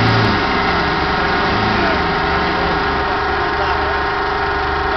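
A 4x4's engine running steadily at an even, unchanging speed.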